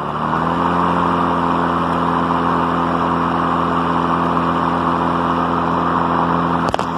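Ryobi 40-volt battery lawn mower's electric motor and blade running steadily at full speed, a steady hum with a rush of air, with a click near the end. It runs without cutting out, with its faulty safety switch bypassed by a metal jumper.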